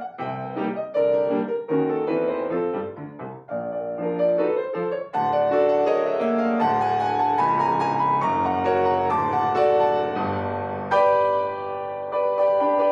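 Solo piano playing classical music. The first few seconds are short, separated chords. From about five seconds in the passage becomes fuller and sustained, with a strong new chord about eleven seconds in.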